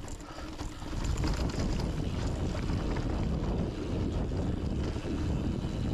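Wind rushing over the microphone of a mountain bike rider's camera at speed, with the bike and its tyres rattling over the trail. It gets louder about a second in.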